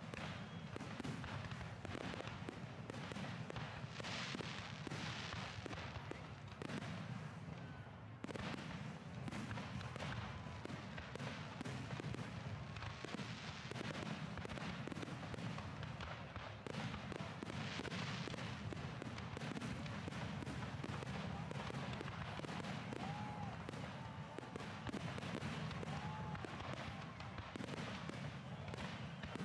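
Fireworks display: aerial shells bursting in a dense, unbroken run of bangs and crackle.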